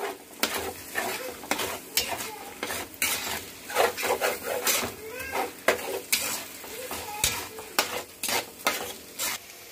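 A flat metal spatula scraping and stirring grated ash gourd frying in ghee in a hammered wok. Repeated sharp scrapes against the pan, about one or two a second, over a steady sizzle.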